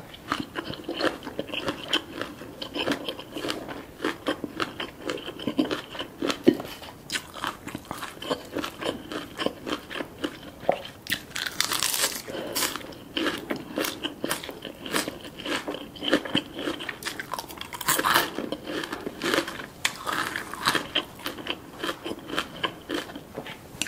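Close-miked crunchy chewing of a spicy papaya salad with iceberg lettuce, a dense run of wet, crisp crackles, with a loud crisp bite into a lettuce wrap about halfway through and another loud crunch about three-quarters in.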